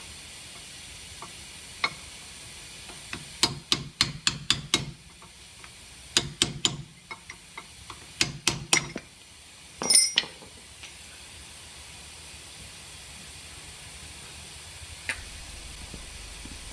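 A hammer tapping a flat-bladed tool against the metal dust cap on a Nissan Micra's rear brake drum hub, to knock the cap off. Several short runs of sharp metallic taps, then one louder ringing clink about ten seconds in.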